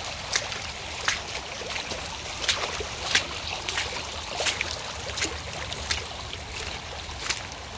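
Shallow muddy floodwater flowing fast across a grassy yard: a steady wash of running water with many short sharp ticks and splashes scattered through it.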